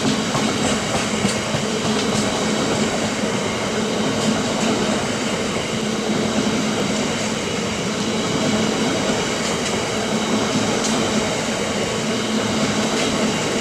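Covered hopper wagons of a freight train rolling past close by: a steady rumble and rush of wheels on rail, with an occasional faint click.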